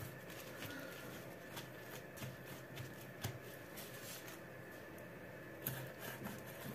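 Faint, scattered taps and rustles of a knife cutting raw hake fillets into pieces.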